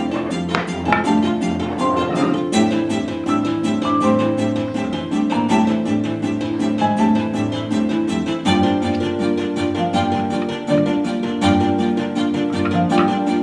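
Background music with plucked and bowed strings playing a light melody.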